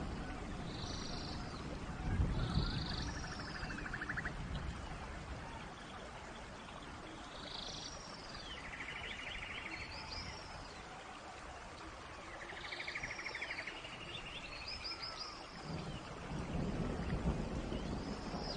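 Birds calling in a forest over a steady hiss of rain. A short phrase of high notes and a rapid trill repeats every few seconds, and a low rumble rises near the start and again near the end.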